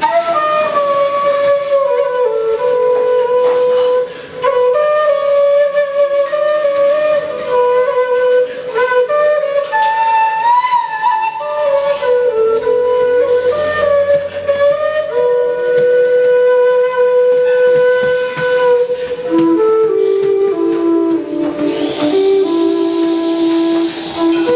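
Long bamboo end-blown flute playing a slow melody of long held notes, with a wavering note a little before the middle.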